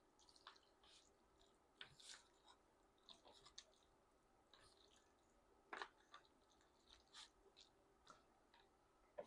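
Near silence, with a few faint, scattered wet clicks of jajangmyeon noodles being stirred and pulled apart in their sticky black bean sauce; the clearest comes about six seconds in.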